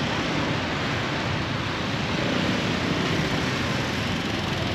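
Steady background rumble and hiss of street and market noise, with no distinct events.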